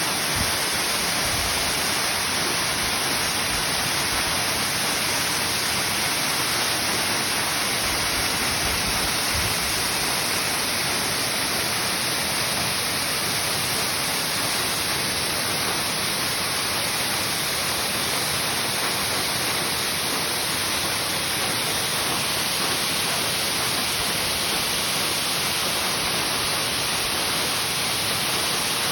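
Ryuzu Falls, a cascade waterfall running down a long rock slope, giving a steady, unbroken rush of water.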